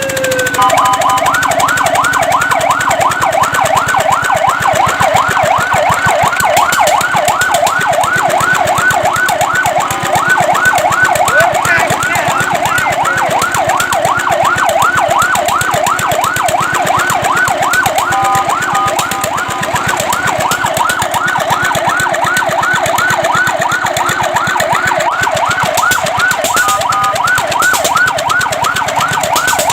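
Fire truck siren in a fast yelp, its pitch sweeping up and down about three times a second, loud and continuous, broken twice by a brief steady tone.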